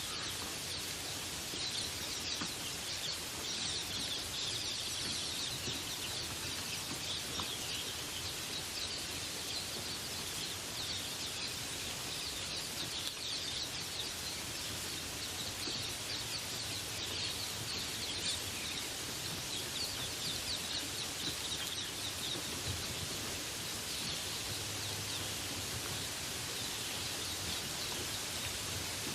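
Steady rain hiss, with many small birds chirping over it in a dense chorus.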